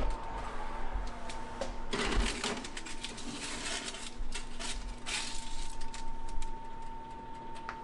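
Foil-lined baking tray being slid onto a metal oven rack and adjusted: aluminium foil crinkling and the pan rattling and scraping against the rack in several short bursts, the loudest about two seconds in, over a steady high hum.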